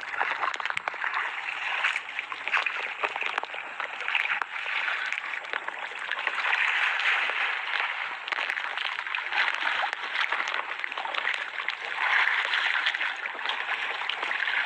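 Sea water rushing and sloshing against a small outrigger boat in choppy water, a steady hiss dotted with many small splashes.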